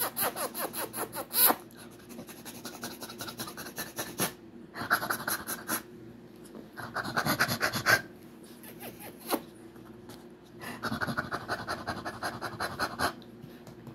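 Small dog panting after play: spells of quick, rapid breaths, about five of them, with short pauses in between.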